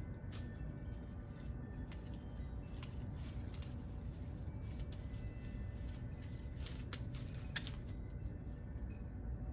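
Toy poodle chewing and tugging at the twigs of a small conifer: irregular sharp snaps and crunches, bunched in two spells, over a steady low rumble of wind.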